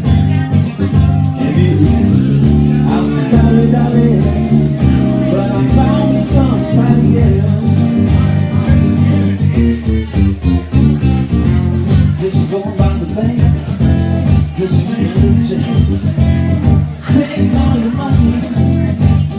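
Live blues band playing an instrumental stretch: guitar over a heavy bass line and a steady drum beat.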